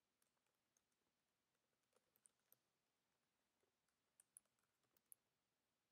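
Near silence, with a handful of faint computer keyboard key clicks in the second half.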